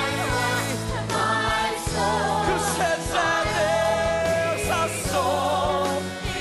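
A live rock-musical number: a male lead sings loudly over a rock band with bass and a steady drum beat, joined by other voices.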